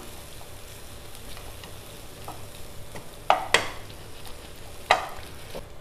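A spoon stirring boiled sweet corn kernels and melting butter in a pan, with a few sharp scrapes or knocks of the spoon against the pan a little past halfway and near the end.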